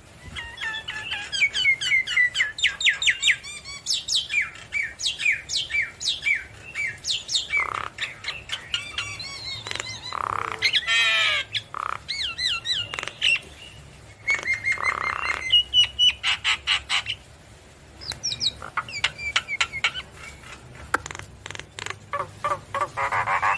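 Javan myna singing in full voice: a rapid, varied run of whistles, sliding notes, chattering rattles and harsh squawks, with a short lull about two-thirds of the way through.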